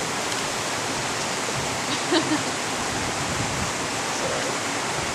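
Steady rushing of a fast-flowing mountain beck, even and unbroken, with two short sounds in quick succession about two seconds in.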